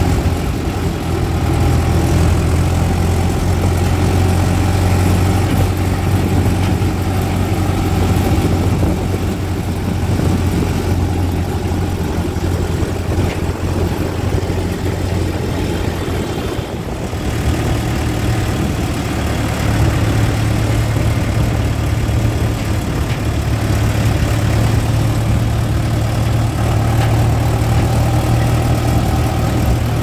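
Swaraj tractor's diesel engine running steadily under way, heard close from the driver's seat beside the exhaust stack. A little past halfway its low note steps slightly higher.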